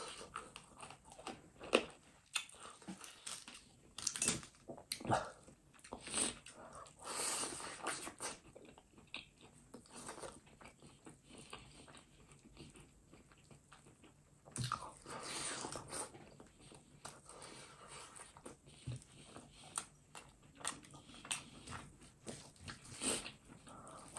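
Close-miked wet chewing and biting of duck curry and rice eaten by hand, with many short lip smacks and mouth clicks and a couple of longer, noisier stretches about seven and fifteen seconds in.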